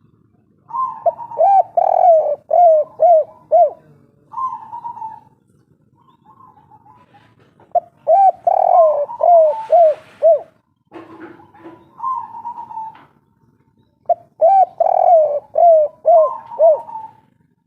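Spotted dove (tekukur) of the 'kuk 3' song type cooing: three song phrases, each a quick run of short rising-and-falling coos followed by a longer held coo.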